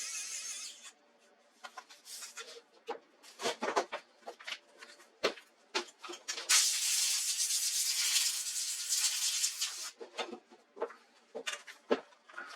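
Hands working on a laptop's plastic casing and parts: two spells of scraping and rubbing, one fading about a second in and a longer one in the middle, with scattered clicks and taps throughout.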